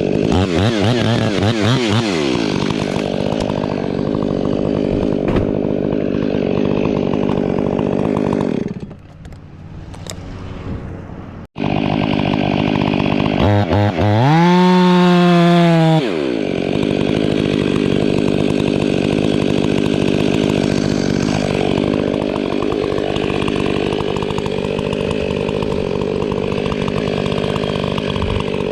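Two-stroke chainsaw running and cutting wood, its engine speed rising and falling. About nine seconds in it drops back for a couple of seconds, then it revs up hard and runs on steadily.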